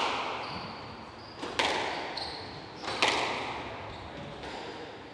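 Squash rally: the ball cracks sharply off rackets and walls twice, about a second and a half apart, each hit echoing in the enclosed court, with brief shoe squeaks on the wooden floor between them.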